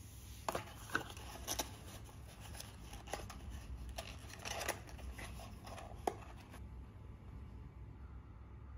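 Small handling sounds: about half a dozen light clicks and taps of objects being moved on a table, over a steady low hum.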